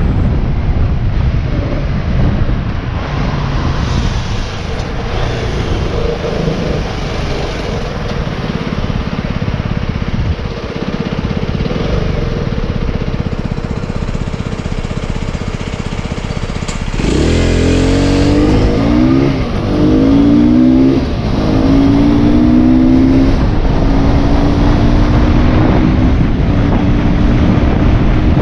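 Motorbike engine under wind noise while riding. About two-thirds through the engine pulls away strongly, its pitch climbing and dropping at each of three gear changes, then holding steady at cruising speed.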